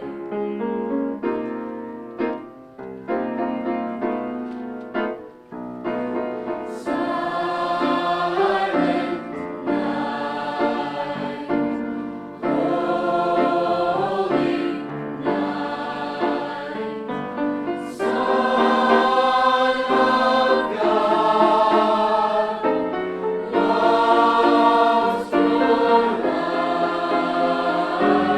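A high school choir singing, accompanied by an instrument. Separate struck notes open the passage, and the choir comes in about seven seconds in.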